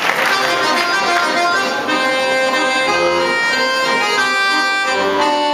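Klezmer band playing live, led by an accordion playing a melody of held notes over chords.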